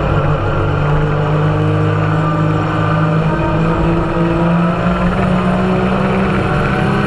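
Side-by-side UTV engine running at a steady speed under way, heard from inside the cab, its pitch held nearly level throughout.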